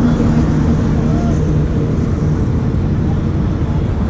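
Steady low drone of an unseen running engine, even and unchanging.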